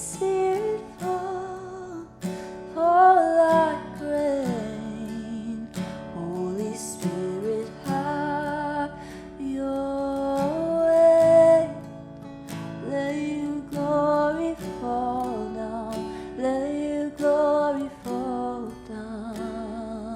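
Worship music: an acoustic guitar strummed in a steady rhythm under a melody line that wavers with vibrato.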